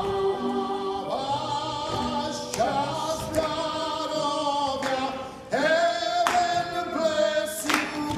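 Male chorus singing a show tune in long held notes, several phrases in a row, each note starting with a short scoop up in pitch.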